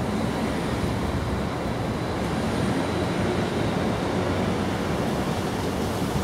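Steady low rumbling background noise with a faint thin high tone over it, no distinct events.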